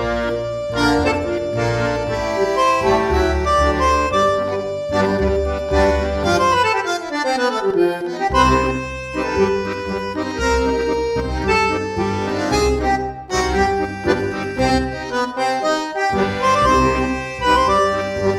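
Background music: an instrumental tune of held melody notes over a steady bass pulse, with a falling run of notes about midway.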